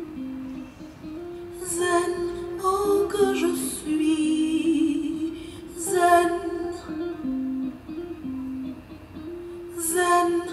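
Live band music: a plucked string instrument plays a repeating melody, with short sung phrases from a woman about two, six and ten seconds in.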